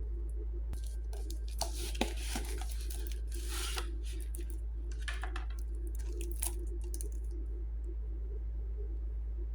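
Packaging being torn open by hand: a run of tearing and crinkling bursts in the first four seconds, then shorter ones around five and six and a half seconds in, over a steady low hum.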